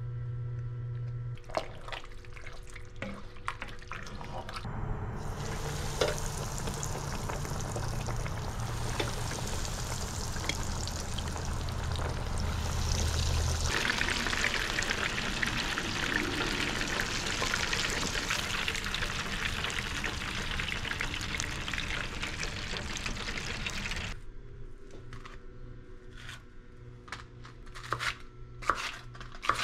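Water pouring in a steady rush for about twenty seconds, growing louder and brighter partway through, then cutting off suddenly. Light clinks and taps of kitchen utensils come before and after it.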